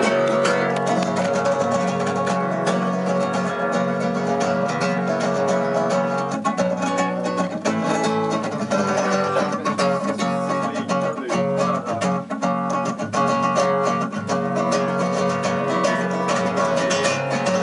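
Music led by plucked strings, a guitar or similar, playing steadily.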